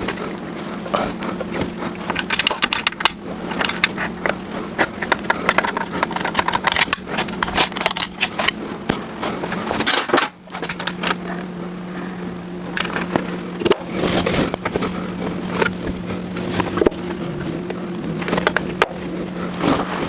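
Irregular metal clicks and scrapes of hand tools working on a small-block Ford engine under assembly, over a steady low hum.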